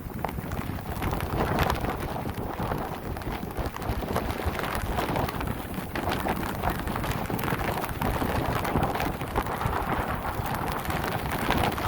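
Tropical-storm wind and rain: gusts buffeting the microphone with a low rumble over a dense patter of raindrops.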